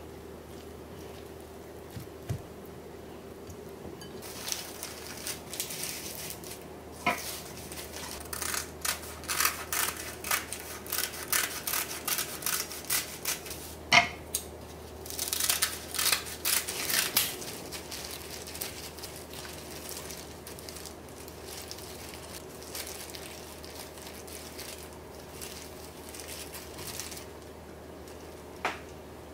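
Kitchen food preparation: a utensil scraping and clicking against cookware in a quick, irregular run, with one sharp knock about halfway through, over a steady appliance hum. It quietens to a few light taps for the second half.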